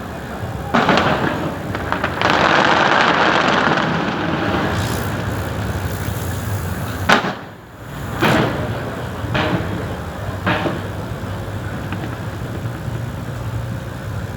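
Fireworks bursting: a series of sudden booms, with a long dense stretch of bursts about two seconds in, a sharp bang about seven seconds in, and smaller booms after it.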